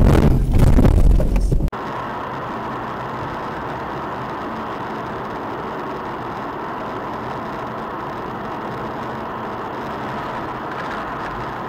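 Loud low rumbling and buffeting inside a car as it ploughs off the road through snow, cutting off abruptly under two seconds in. Then the steady hum of a car driving on a paved road, heard from a dashcam inside the cabin.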